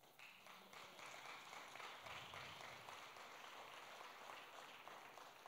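Faint applause from a congregation, a dense patter of many hands clapping that fades out near the end.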